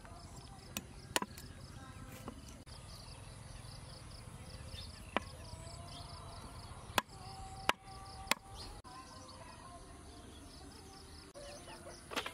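Cleaver chopping raw frog on a wooden chopping block: about seven sharp, irregular chops, often a second or more apart. Insects chirr steadily in the background.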